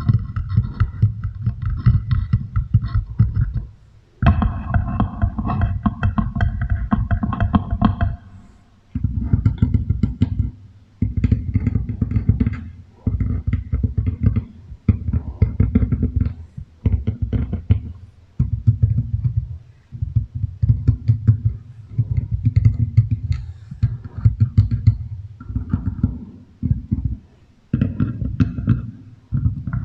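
Beeswax food wrap crinkled and tapped right against a microphone through a heavy echo effect: rapid, deep, bass-heavy crackling in bursts of one to four seconds with short pauses between.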